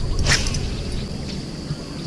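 A fishing rod swishing through an overhead cast, one quick whoosh about a third of a second in, over a low rumble and a steady faint high-pitched hum.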